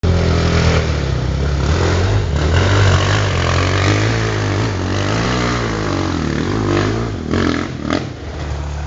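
Motorcycle engine running and revving, its pitch rising and falling over several seconds and dipping briefly near the end.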